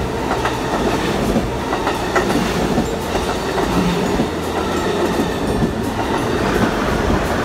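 Amtrak passenger coaches rolling past close by, a steady loud noise of wheels on rail with repeated clacks as the wheels cross the rail joints.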